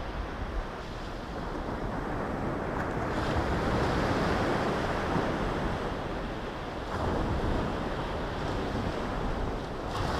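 Surf breaking on a sandy beach: a steady wash of waves that swells and eases. Wind is rumbling on the microphone.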